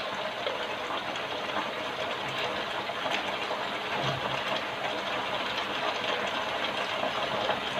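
Macaroni with sauces frying in a pot, a steady sizzle with faint scattered ticks.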